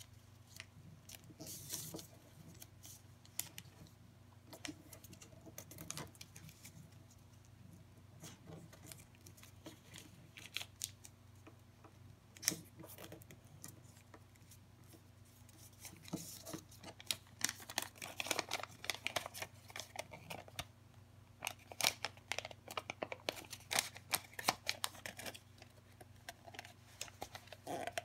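A sheet of origami paper being folded and creased by hand: scattered crinkles and sharp creasing clicks, sparse at first and much busier in the second half.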